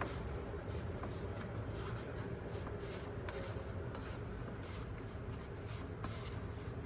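Hands tossing pork pieces in cornstarch in a stainless steel bowl: soft, irregular rustling and scuffing of the powdery coating, with a few faint clicks against the bowl.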